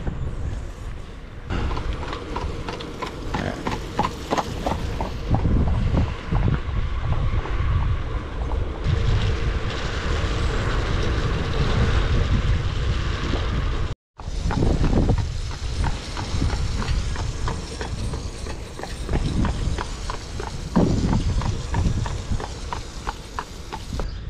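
Wind rumbling on a handlebar camera's microphone while cycling on wet roads, with quick regular clicking through much of it. The sound cuts out for a moment about halfway through.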